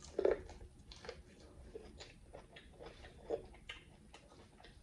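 Biting into boiled corn on the cob and then chewing: small wet crunches and mouth clicks. The loudest one is the bite coming off the cob about a quarter second in, with another stronger crunch a little past three seconds.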